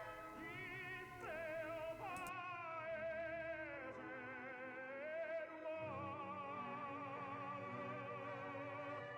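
Background music: an operatic tenor singing a Neapolitan song with strong vibrato, holding one long note through the second half.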